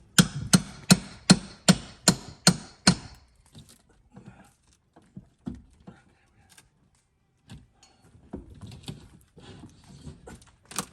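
A hammer striking wood about eight times in quick, even succession, roughly two and a half blows a second, then a few faint knocks and handling noises.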